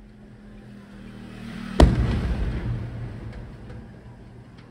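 Aerial firework shells in a night display: a rising rumble, then one sharp loud bang of a shell bursting about two seconds in, trailing off into a long echoing rumble with a few smaller cracks near the end.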